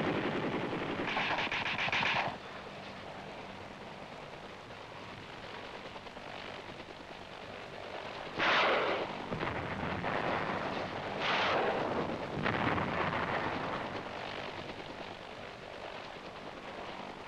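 A short burst of rapid machine-gun fire from a helicopter's mounted machine guns about a second in. Then a low steady background, broken in the middle by two loud blasts about three seconds apart.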